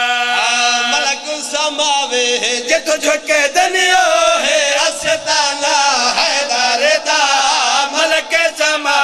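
A male zakir's sung majlis recitation, a chanted Punjabi lament without instruments. It opens on one long held note, then breaks after about a second into wavering, ornamented singing, with scattered sharp knocks.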